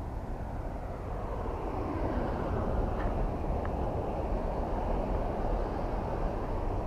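Road traffic on the highway bridge overhead: a steady rumble that swells about two seconds in and holds.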